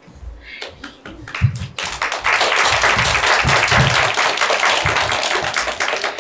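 Audience applauding: a few scattered claps, then dense, steady clapping from about two seconds in.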